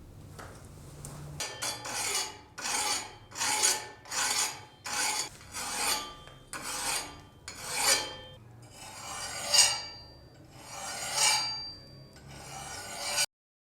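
Rhythmic hand abrasive strokes rasping back and forth on a rusty steel knife blade, the work of taking off rust and sanding the blade. The strokes start a little way in, come about one and a half a second at first, slow down after the middle, and stop abruptly near the end.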